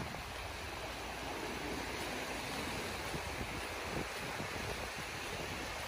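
Small waves washing up onto a sandy beach, a steady hiss of surf.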